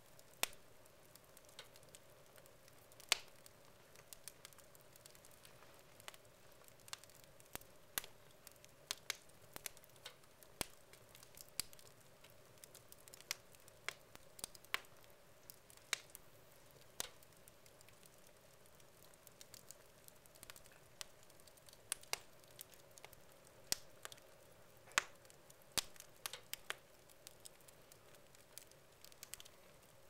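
Wood logs burning in a fireplace, crackling with irregular sharp pops and snaps. The pops come in clusters with quieter gaps between them.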